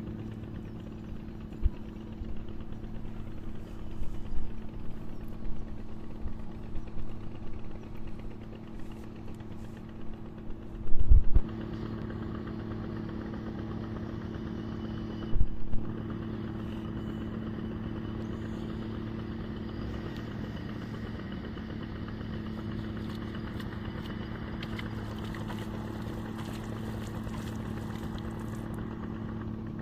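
A small engine running steadily with an even hum, and two loud low thumps, one about a third of the way in and one about halfway.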